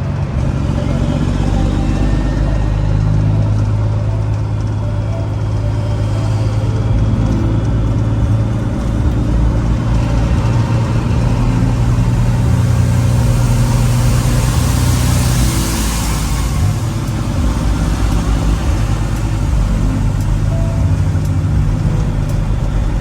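Semi truck's diesel engine running steadily under way, a low drone, with a hissing rush that swells and fades a little past the middle.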